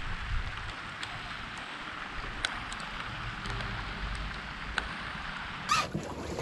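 Steady rain falling on lake water and lily pads: an even hiss with scattered single drops ticking, over a low rumble of wind. A brief louder sharp sound comes near the end.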